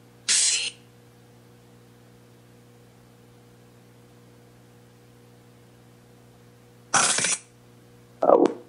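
Ghost-hunting spirit-box app playing through a small JBL Bluetooth speaker: short chopped bursts of hissy noise and sound fragments, once near the start and twice near the end, the last one lower and voice-like. A steady low hum runs underneath.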